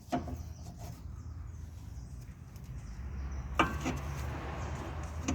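Workshop sounds of a steering tie rod end being fitted: a light click at the start and one sharp metallic knock about three and a half seconds in, over a steady low hum.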